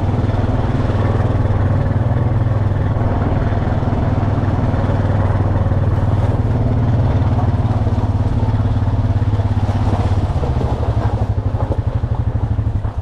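Fish delivery truck's engine running steadily. Over the last few seconds it turns rough and pulsing, then cuts off abruptly.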